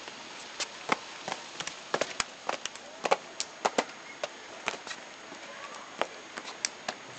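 Footsteps and shoe scuffs on stone paving and sculpture: irregular sharp taps, a few a second, over faint outdoor background hiss.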